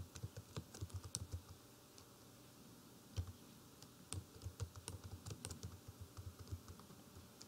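Computer keyboard typing: runs of quick keystrokes, a pause of about two seconds in the middle broken by a single keystroke, then another steady run of typing.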